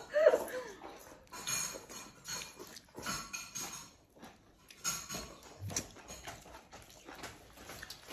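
Eating sounds at a table: chewing and mouth noises from people eating fried dough sticks and congee, in short scattered bursts.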